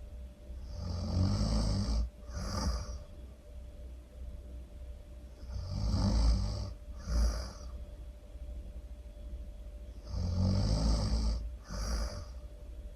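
A person snoring loudly: three snores about four and a half seconds apart, each a long snore followed by a shorter, breathier sound.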